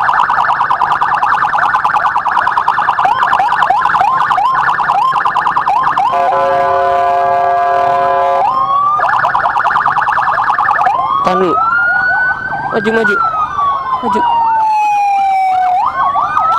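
Ambulance siren close ahead. It gives a fast yelp for about six seconds, then a steady horn-like blast of about two seconds, then the fast yelp again, and switches near the end to a slow wail that rises and falls.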